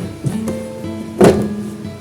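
Soft background music with held guitar notes, and a single loud thump a little past a second in.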